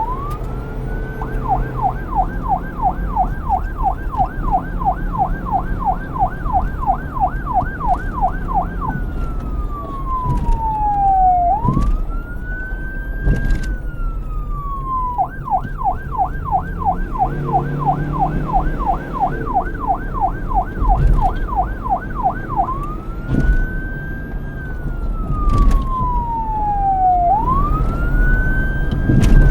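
Police car's electronic siren alternating between a slow wail, a long rise and fall in pitch, and a fast yelp of about four sweeps a second; the yelp runs twice for about seven seconds each, with wail cycles between. A low rumble sits underneath.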